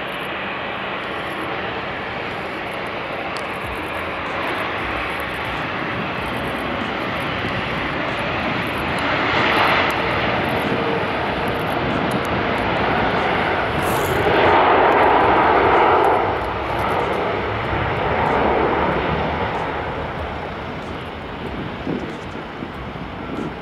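Airbus A321 jet airliner on its takeoff roll, engines at takeoff power: steady jet engine noise that grows louder as the plane comes past, peaks a little past halfway, then fades as it rotates and lifts off.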